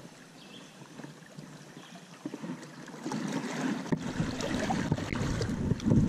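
Water splashing as a hooked brook trout is reeled in to the angler's feet and reached for by hand at the surface. It is soft at first and grows louder with quick splashes about halfway through, joined by a low rumble near the end.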